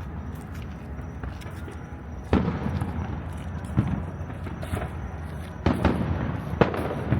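Fireworks booming at a distance: four sharp bangs at irregular gaps, each trailing off in an echo, over a steady outdoor background.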